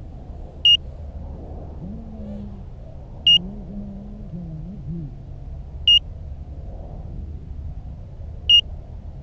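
Lost-model beeper on a crashed FPV racing quadcopter, sounding four short, high, loud beeps about two and a half seconds apart so the downed quad can be found, over a steady low rumble.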